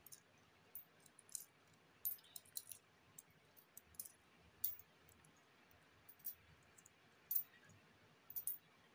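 Coins being set down one at a time on a cloth-covered surface, making light clicks as they tap onto the growing pile, about a dozen spread irregularly.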